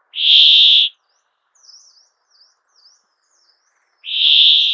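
Brambling song: two loud, harsh, buzzy wheezes, each just under a second long and about four seconds apart. Faint, quick, higher twittering notes sound in between.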